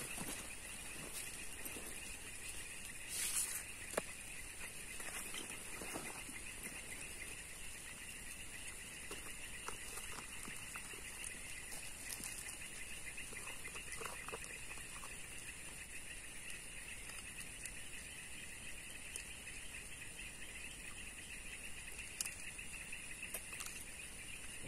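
Light rain pattering on a creek's surface and the bankside plants, over a steady chorus of insects. A brief rustle and a tap come about three to four seconds in.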